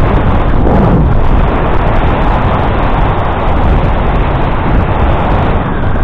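Wind buffeting the microphone of a camera on a moving bicycle: a loud, steady rumbling noise.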